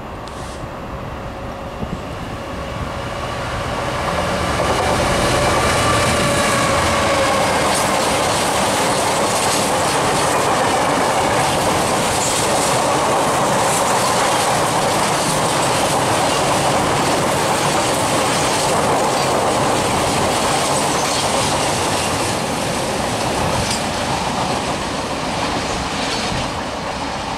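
Class 66 diesel-electric locomotive, with its two-stroke V12 engine, passing with a steady engine drone over the first several seconds. A long rake of freight wagons then rolls by, wheels clicking over rail joints in a steady clatter that eases off slightly near the end.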